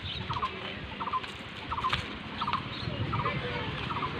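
A chirping call repeated steadily: a quick run of three or four notes about every two-thirds of a second, with other birds calling faintly higher up. A low rumble of wind and handling runs on the microphone underneath.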